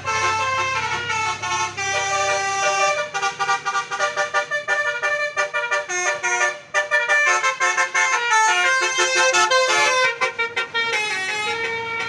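A bus's musical 'telolet basuri' air horn playing a fast melody of short, stepping notes, with a low rumble under the first few seconds.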